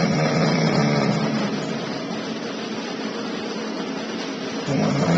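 A young adult snoring, heard from a recording: loud, very intense snores with a low rasping buzz. One fades out in the first second or two, and another begins near the end.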